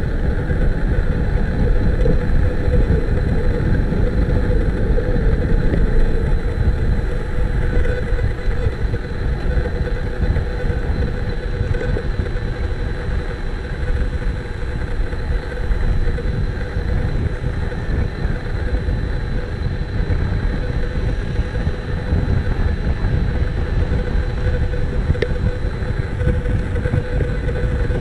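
A camera gimbal's motors giving off a steady whine, heard over heavy wind and road rumble from riding at speed.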